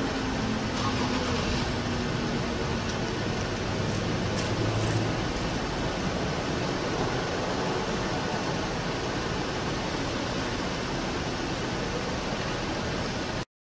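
The Federal Signal Thunderbolt 1003 fire siren's last falling tone fading out in the first second or two as it winds down. Then steady traffic noise, which cuts off abruptly near the end.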